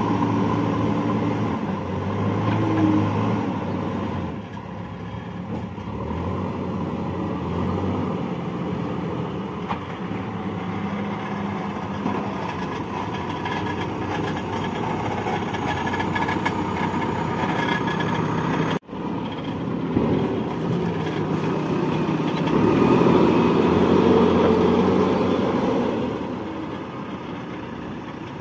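JCB 3DX backhoe loader's diesel engine running under load as the front bucket pushes and spreads soil, its speed rising and falling. The sound breaks off for an instant about two-thirds through and is loudest for a few seconds near the end.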